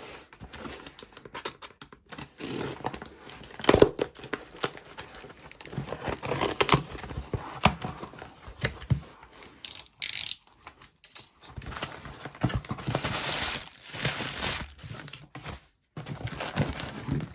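A cardboard shipping case being torn open by hand: packaging tearing, with cardboard and wrapping rustling and crinkling, and a sharp knock about four seconds in.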